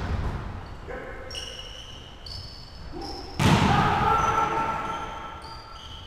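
Volleyball being struck by hands during a rally in an echoing gym: several sharp slaps, the loudest about three and a half seconds in, mixed with high, short squeaks of sneakers on the hardwood floor.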